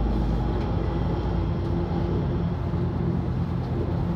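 Bus engine running steadily with road noise, heard from inside the bus; a deep rumble eases about a second and a half in.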